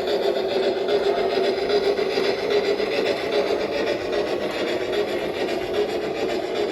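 Bachmann Shay model locomotive's DCC sound decoder playing fast, even steam chuffing through its small onboard speaker.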